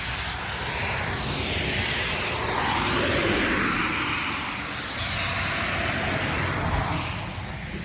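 A vehicle passing by: a broad rushing noise that swells over a few seconds, peaks, and fades away.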